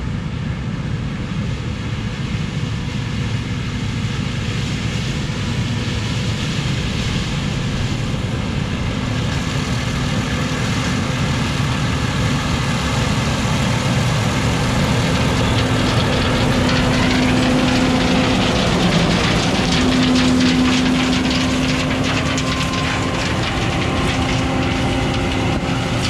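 John Deere 9400 combine running under load while harvesting corn: its diesel engine and threshing machinery make a steady drone. A held hum in it grows stronger in the second half.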